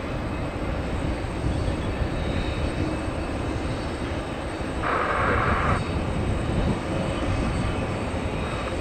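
Steady jet engine noise of an Airbus A320-200 airliner arriving to land. A brief hiss cuts in about five seconds in and lasts about a second.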